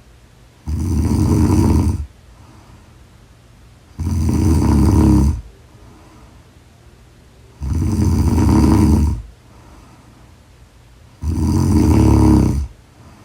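A woman snoring loudly in a steady rhythm: four long snores, each lasting over a second, about every three and a half seconds, with quiet gaps between.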